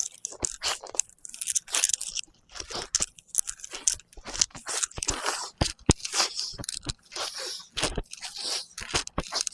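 Dense, irregular crunching and crackling: many sharp crunches in quick succession, close to the microphone.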